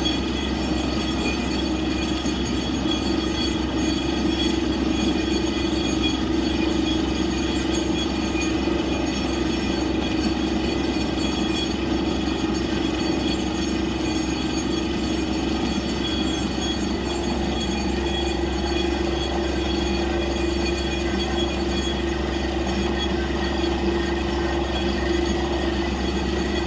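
Borewell drilling rig running steadily, its engine and air compressor droning with a constant tone, while water blown up from the bore splashes out in a spray around the drill head: the borehole has struck water.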